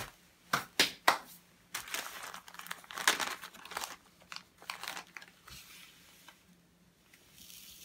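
Plastic zip-lock bag crinkling and rustling as it is handled and opened, with three sharp crackles about a second in; the rustling dies down over the last couple of seconds.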